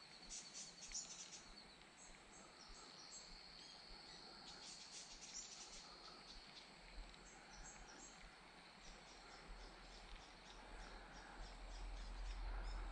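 Faint outdoor ambience: small birds chirping over and over, and a steady high insect trill that fades after the first few seconds. A low rumble grows near the end.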